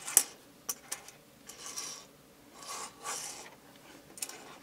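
A small toy car pushed across a tabletop by hand: a few short scraping rubs with light clicks.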